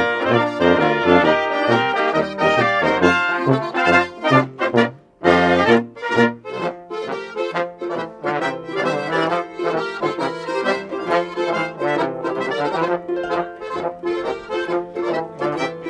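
Polka music played with brass and accordion, with a short break about five seconds in.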